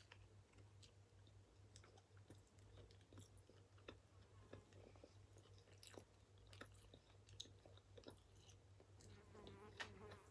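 Faint close-up chewing of a burger, with soft wet clicks and mouth sounds scattered through, over a steady low hum.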